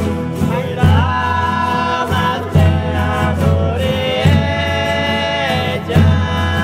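Sung music: several voices holding long notes that slide from one pitch to the next, over a steady bass accompaniment.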